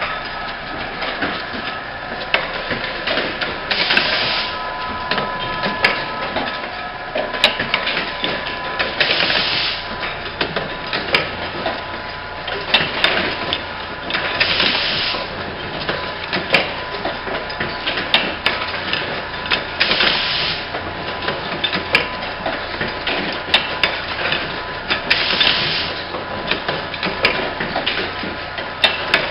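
Automatic insulin syringe assembly machine running: a continuous clatter of clicks and clacks from its feeding and transfer mechanisms over a steady whine. About every five seconds its pneumatic cylinders let out a short hiss of compressed air as a cycle of parts moves through.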